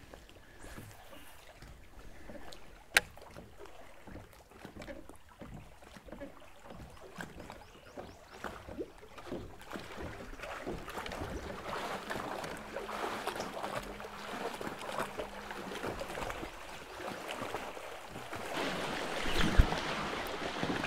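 Open-water ambience from a small aluminium fishing boat: water and light wind noise, with one sharp click about three seconds in, a faint steady hum for a few seconds midway, and a louder thump near the end.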